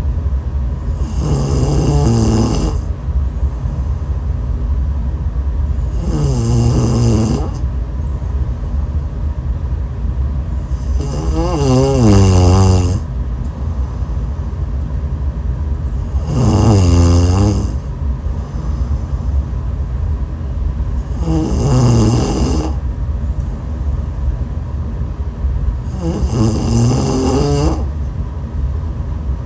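Loud, rhythmic snoring: a rattling snore of about a second and a half, its pitch wavering, comes roughly every five seconds, six times over, over a steady low hum.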